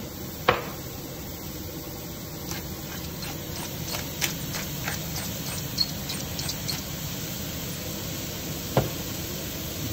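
Cauliflower, onion and garlic frying in butter and oil in a stainless steel pan, a steady sizzle, with a pepper mill grinding over it in a run of small crackling ticks a few seconds in. Two sharp knocks stand out, one about half a second in and one near the end.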